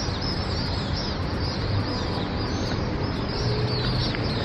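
A flock of small migratory birds chirping together: a dense chorus of many short, high, overlapping chirps over a steady low background hum.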